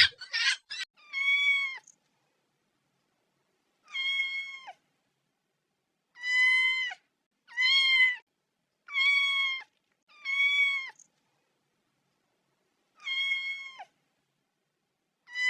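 A cat meowing again and again: about eight separate drawn-out meows, each under a second long with a slight drop in pitch at the end, spaced one to three seconds apart. A few chicken clucks are heard in the first second.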